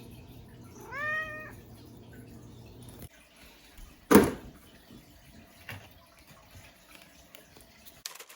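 A cat meows once, a single call that rises and falls in pitch about a second in. About four seconds in there is a brief, loud sharp noise.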